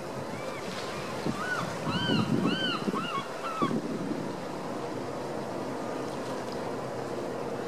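A bird gives a quick run of about seven short, rising-and-falling calls, starting about a second in, over a steady wash of wind and harbour water.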